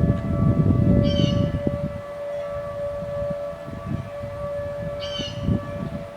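Outdoor tornado warning sirens sounding a steady tone, more than one heard at once at slightly different pitches. A low rumbling noise is strongest for the first two seconds. Short high chirps come twice, about a second in and about five seconds in.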